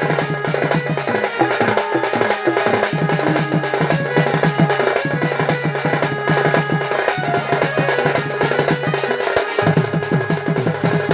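Fast, continuous folk drumming with a steady low droning tone under the beats; the drone drops out briefly near the end.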